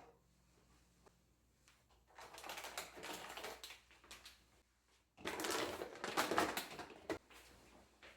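Cleaning a refrigerator by hand: two spells of rubbing and light clatter, each a second or two long, with a single sharp knock near the end.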